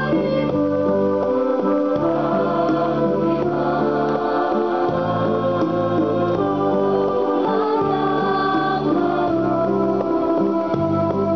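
A large mixed school choir of girls and boys singing an Indonesian song, holding long notes that change every second or so, with electronic keyboard accompaniment.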